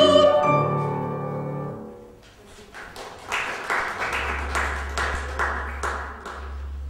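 A woman's classical singing voice and its accompaniment hold the song's final note, which fades away over about two seconds. Then a small audience claps for about four seconds, over a steady low hum.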